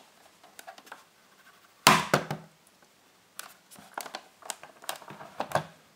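Knocks and clicks from a closed rubber-keyboard ZX Spectrum's plastic case being handled and moved on a wooden table, with a heavier thump about two seconds in and a run of lighter knocks after it.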